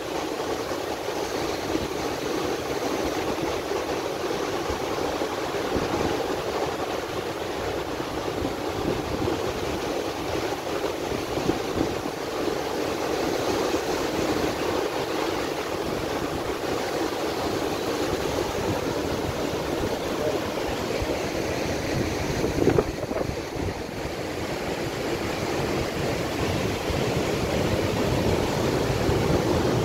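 Sea surf breaking and washing over a rocky shore: a steady rushing of waves, with one brief louder thump about three-quarters of the way through.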